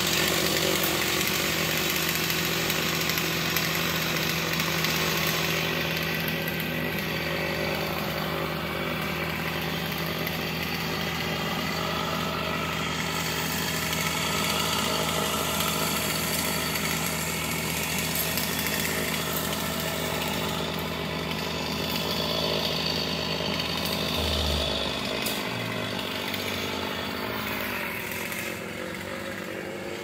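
Chainsaw running up in the tree as the climber cuts the hickory trunk, with a steady low engine hum underneath that stops about 24 seconds in.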